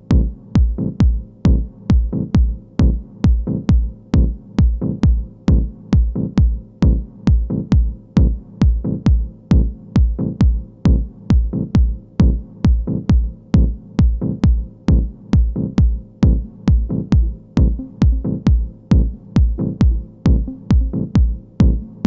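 Electronic trance music: a drum-machine kick drum on every beat at about 134 beats per minute, over steady held bass and synth tones.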